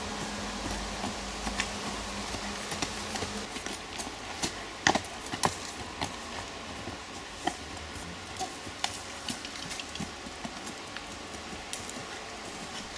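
Horse's hooves striking a gravel and sand track as it is ridden, a scatter of sharp clip-clop hits, loudest about five seconds in.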